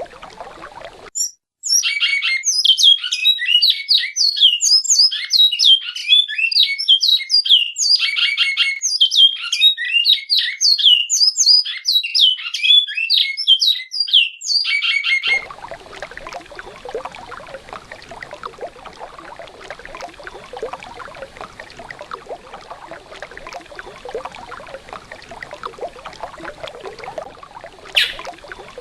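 Great-billed seed finch (bicudo) singing a long run of rapid fluting whistles in the classic 'alta mogiana' song style, cutting off abruptly after about 14 seconds. Then the steady rush of running river water follows, with a single sharp chirp near the end.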